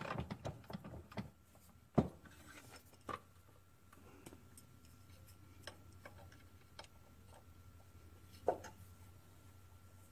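Small metal engine-governor parts and hand tools clicking and knocking against a steel workbench as they are handled and assembled: a quick run of clicks at the start, a sharper knock about two seconds in, then scattered ticks and one more knock near the end, over a faint steady hum.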